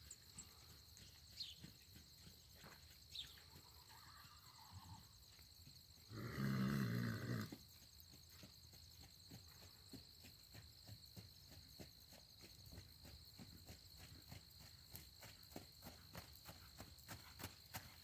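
Hoofbeats of a Haflinger horse on arena dirt, faint at first and growing into a regular beat as the horse comes near toward the end, over a steady high insect trill. A louder burst of noise lasts about a second and a half, some six seconds in.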